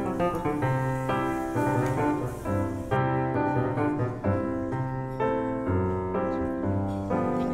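Background music led by piano, its notes changing in a steady run.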